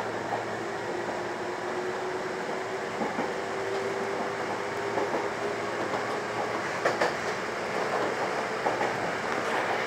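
Kotoden Kotohira Line electric train running along the track, heard from the driver's cab: a steady rumble of wheels on rail under a steady hum, with a few clacks as the wheels pass over rail joints.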